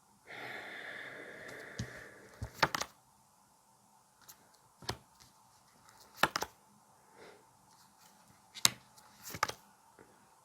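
Tarot cards being shuffled with a rustle for about two seconds, then set down one at a time with several sharp taps on the table.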